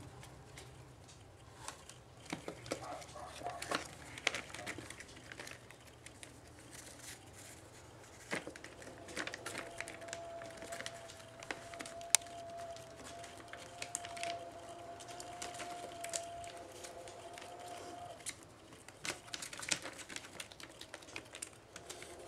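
Faint, irregular rustling, crinkling and scratching as pet rats scrabble and rummage over newspaper, cloth and a cardboard box in a plastic bin. A faint steady tone hums in the background for several seconds in the middle.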